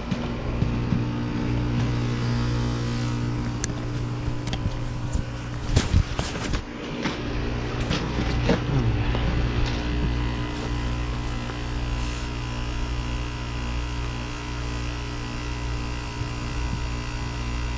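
Heil Sentry 15 heat pump outdoor unit running in defrost mode: a steady compressor hum over a hiss, with a few knocks about six seconds in and a brief falling tone a little later.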